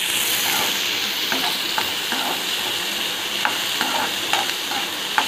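Chopped onions sizzling steadily in hot oil in a kadai while a metal slotted ladle stirs them, with scattered taps and scrapes of the ladle against the pan. The onions are being fried until brown.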